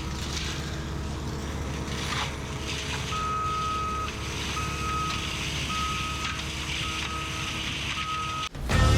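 A heavy machine's engine running steadily while its reversing alarm beeps about six times on one tone, starting about three seconds in. The sound cuts off shortly before the end and music begins.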